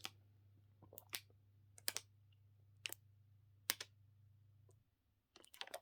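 Sparse single clicks from computer use, about a second apart, then a quick run of clicks near the end, over a low steady hum that cuts off about five seconds in.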